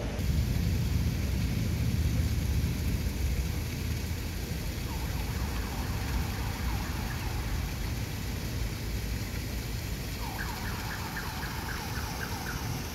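Steady low traffic rumble of a busy city square, loudest in the first few seconds. About halfway through and again near the end comes a spell of rapid, repeated high-pitched ringing.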